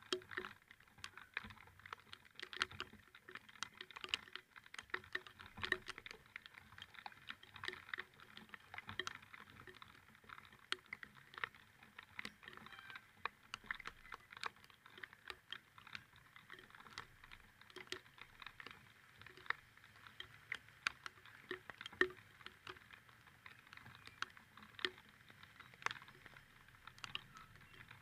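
Raindrops tapping irregularly on a hard surface close to the microphone: a quiet, uneven patter of sharp little clicks.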